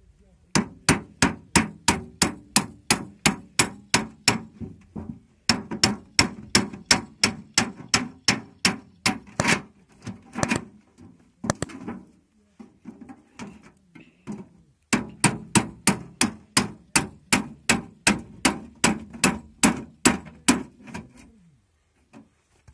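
Hammer striking a metal cutting tool held against the top of a square tin oil can, cutting through the thin sheet metal. Rapid sharp blows, about three a second, in three runs with short pauses between them.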